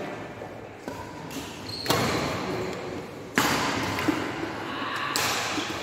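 Badminton rally: sharp racket strikes on the shuttlecock, two loud ones about a second and a half apart and a lighter one near the end, each echoing in the large hall.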